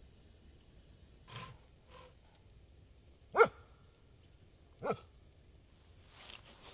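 A dog barking twice, two short sharp barks about a second and a half apart, with a few softer knocks around them.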